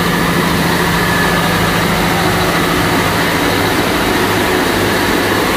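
Loud, steady drone of marine diesel machinery in a boat's engine room: the main engine and diesel generator sets running, with a steady hum and a low beat underneath.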